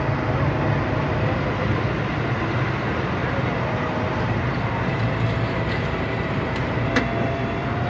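Hitachi EX200-1 excavator's diesel engine running steadily, with a steady whine over it and a single click about seven seconds in.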